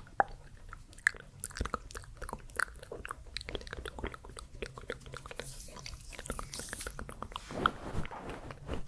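Close-miked ASMR mouth sounds: rapid, irregular wet clicks and smacks, with a soft hiss about two-thirds of the way through.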